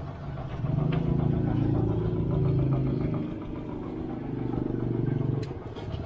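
Motorcycle engine idling steadily, running louder from about a second in and easing back near the end.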